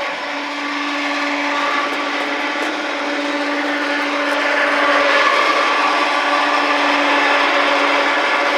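A motor running at a steady speed with a constant whine; it grows a little louder about four to five seconds in.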